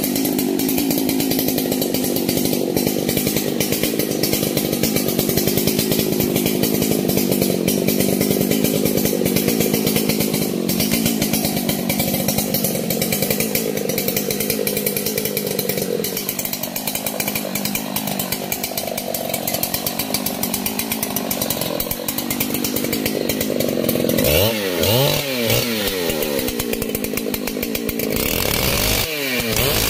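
Large two-stroke chainsaw running hard while cutting into a big tree trunk. It is steady at first, its engine note shifts about halfway through, and near the end it is revved up and down twice.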